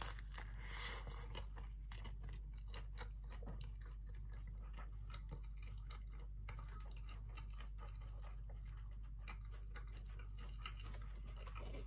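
Close-miked chewing of a pan-toasted burrito, many small crisp crunches and clicks, over a faint steady low hum.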